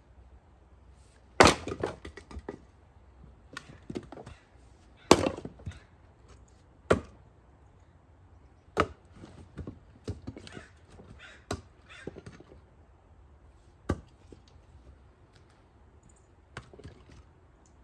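Split firewood pieces knocking against each other as they are thrown onto a pile: sharp wooden clunks every couple of seconds at an uneven pace, with lighter clatter between.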